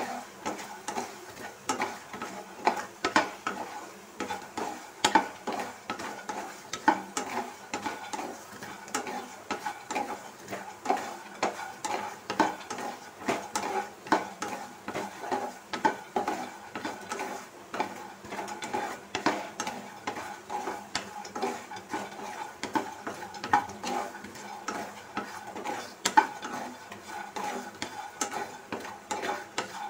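A spatula stirring makhana (fox nuts) around a nonstick kadai, scraping and tapping the pan a couple of times a second, over a light sizzle of frying on low heat.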